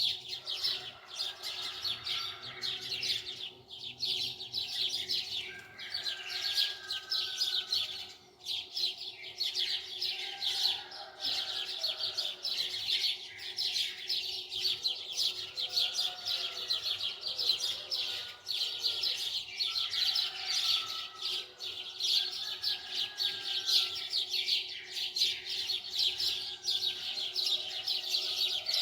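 Birds chirping and twittering continuously in rapid runs, over a faint steady hum.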